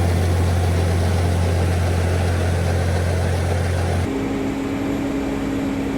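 A steady engine drone with a strong low hum; about four seconds in it cuts to a different, quieter steady hum at a higher pitch.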